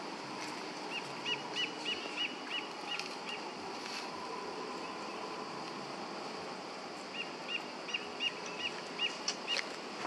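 A bird calling in two runs of short, evenly spaced chirps, about four a second, the first soon after the start and the second in the latter half, over a steady outdoor background hiss.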